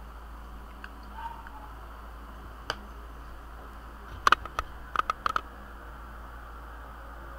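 Steady hiss with a low hum underneath, broken by a single sharp click and then a quick run of about seven sharp clicks between about four and five and a half seconds in.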